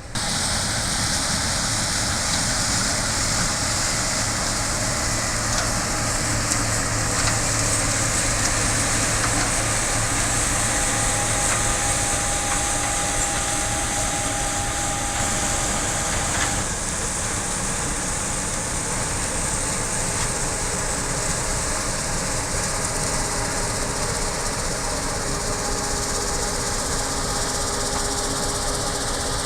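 Heavy harvest machinery running steadily under load: a deep engine hum under a loud, constant mechanical hiss. It cuts in abruptly at the start.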